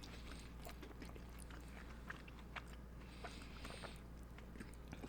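Faint, soft chewing of juicy, syrup-soaked gulab jamun, with scattered small wet mouth clicks and a brief soft hiss about three seconds in.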